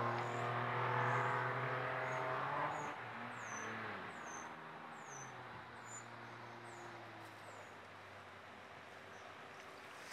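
A motor vehicle's engine going by, loudest in the first few seconds, then dropping in pitch and fading away. A bird repeats short, high, falling chirps over it.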